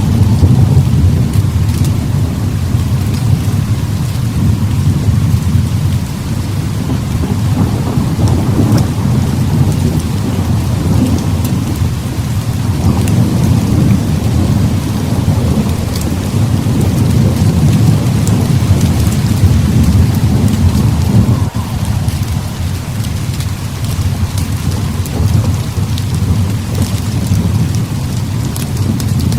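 Heavy rain pouring steadily under long rolling thunder, a deep rumble that swells and eases without stopping, with scattered sharp ticks on top.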